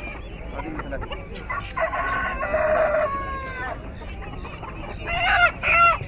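Caged chickens at close range: a rooster crows once, a long call about two seconds in lasting a second and a half. Near the end come short, loud squawking calls from the hens and roosters.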